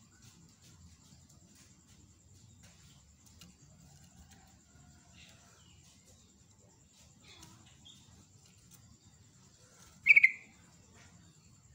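Yellow-vented bulbul (trucuk) giving one short, loud call about ten seconds in, among faint scattered chirps.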